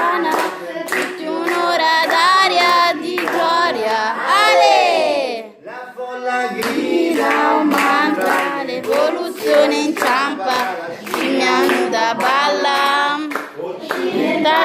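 A man singing a pop tune without accompaniment while clapping his hands in time.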